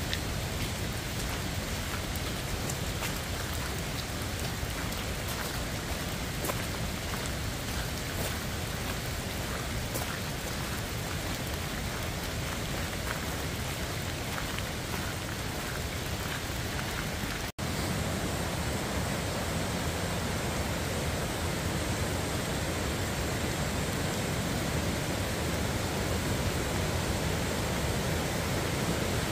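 Steady rain falling through the forest, with scattered drops ticking close by. About two-thirds of the way through it cuts suddenly to the even rush of a mountain river running over rapids.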